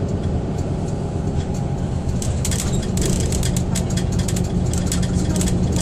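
City bus heard from inside while moving: a steady engine drone with road noise. From about two seconds in, many quick clicks and rattles join it.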